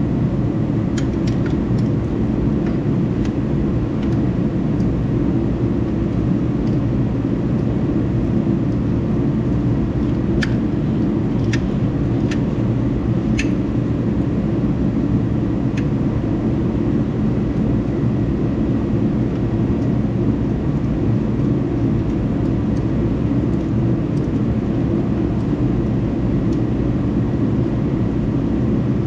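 A steady low drone of machine-like noise, with a few sharp metallic clinks and taps in the first half from hand tools as a starter motor is fitted to a tractor.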